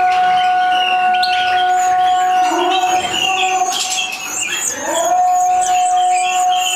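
European goldfinch chirping, with the nestlings' high begging cheeps, over a long held musical note that breaks and slides back up about two-thirds of the way through.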